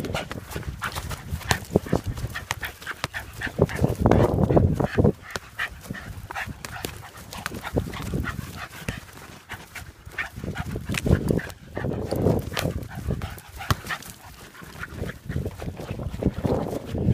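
A Lakeland–Jack Russell terrier cross playing with a football close to the microphone. The dog makes noises in several bursts, among many sharp knocks and scuffs.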